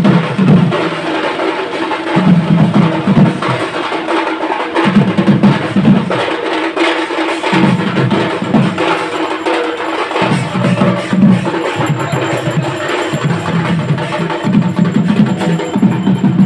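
Music with drums and percussion, the drum strokes coming in clusters that repeat about every two and a half to three seconds.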